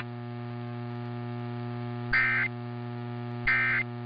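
Steady mains hum, then two short, screechy data bursts about 2 and 3.5 seconds in: the EAS End of Message (NNNN) code in two-tone AFSK, sent in threes to close the alert test.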